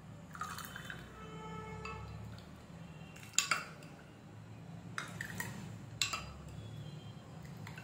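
Steel ladle scooping a thin sattu drink from a glass bowl and pouring it over ice into a glass: liquid pouring and dripping. Three sharp clinks of the ladle against the glass come about three and a half, five and six seconds in, the first the loudest.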